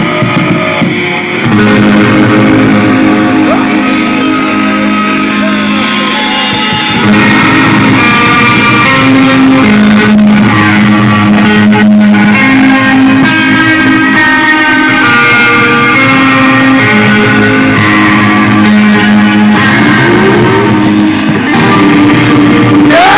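Live rock band playing an instrumental passage led by electric guitar with bass, getting louder about seven seconds in.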